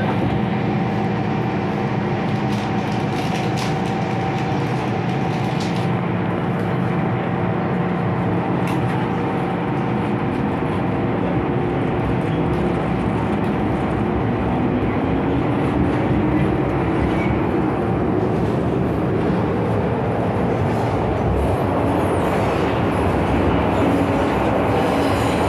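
MTR M-Train running, heard from inside the car: a steady rumble of wheels on rail with a motor whine. About halfway through, the whine rises in pitch as the train gathers speed after leaving the station.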